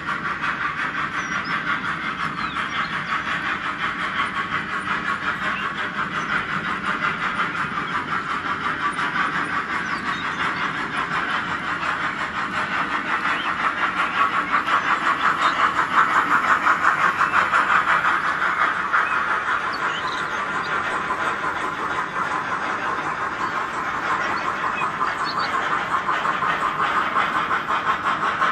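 H0 model freight train running behind its two sound-equipped steam locomotives, a Roco ÖBB 86 and a Roco ÖBB 52: a steady, fast rattle that swells a little about halfway through.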